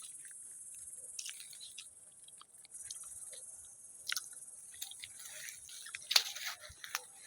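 Soft, irregular crunching and crackling of footsteps and handling on dry vegetation, over a steady high hiss.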